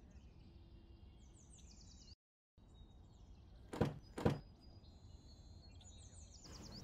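Two sharp clicks about half a second apart as the doors of a Honda car are unlatched and opened, over faint bird chirps.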